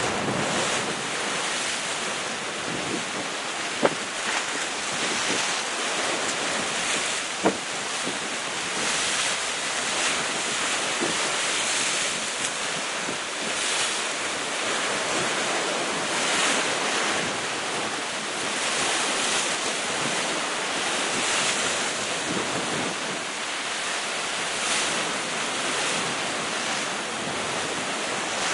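Sea waves breaking against rocks at the foot of a cliff: a continuous rushing of surf that swells every few seconds as each wave hits. Two brief sharp clicks stand out, about four seconds in and again three or four seconds later.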